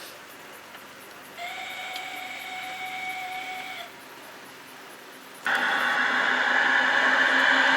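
Gauge 1 live-steam model locomotive's steam whistle blowing one steady note for about two and a half seconds. About five and a half seconds in, a much louder mechanical running sound starts suddenly and keeps growing louder.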